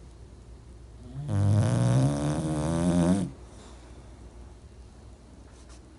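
English bulldog snoring: one long snore starting about a second in and lasting about two seconds, low with a wavering pitch.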